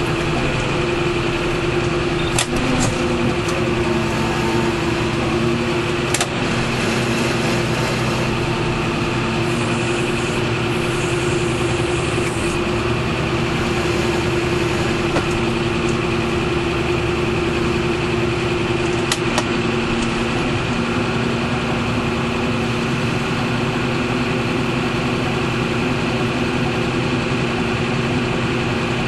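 Tractor engine running steadily at a constant speed, with a few brief clicks about two, six and nineteen seconds in.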